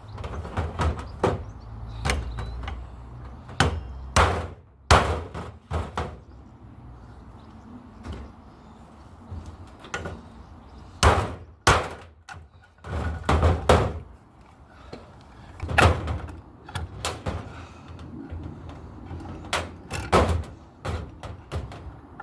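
Irregular metal clunks, knocks and slams from a microwave oven being handled and taken apart for scrap, with a low steady rumble underneath.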